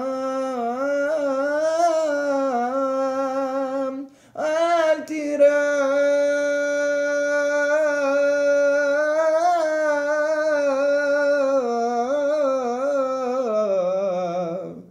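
A man chanting the haftarah solo and unaccompanied in the Constantine (Algerian Jewish) cantillation tradition, drawing syllables out into long, wavering melismatic notes. He pauses briefly for breath about four seconds in.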